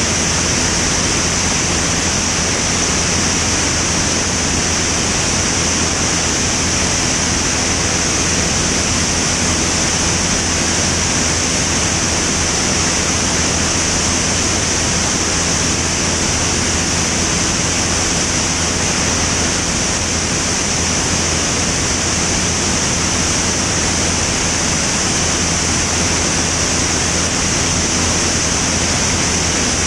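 Steady roar of rushing air on an outside-mounted microphone, with the low drone of a Van's RV-10's engine and propeller running steadily at cruise underneath.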